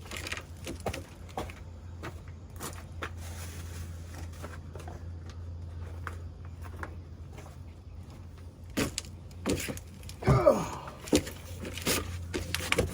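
Scattered light clicks and knocks of handling over a steady low hum, with a few brief mumbled vocal sounds about ten seconds in.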